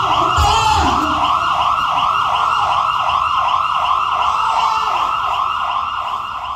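Emergency vehicle siren in fast yelp mode, its pitch sweeping up and down about three times a second, fading away toward the end as the vehicle moves off.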